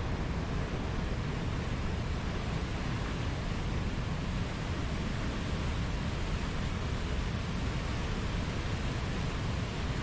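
Whitewater river rapids and a waterfall rushing steadily, a constant deep wash of water with no breaks.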